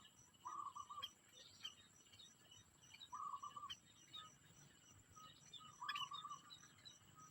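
Birds calling: a short call repeated three times, about every two and a half seconds, among faint higher chirps.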